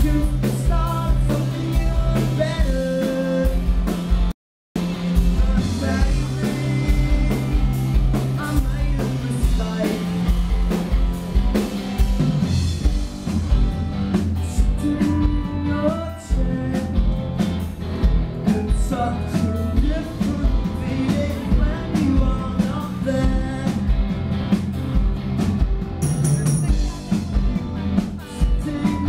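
Live rock band playing: electric guitars, bass guitar and drums with a lead vocal. The sound cuts out completely for a moment about four and a half seconds in.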